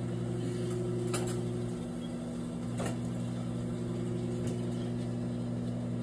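Microwave oven running with a steady hum, heating an apple; three faint pops, spread out, come from the apple cooking inside.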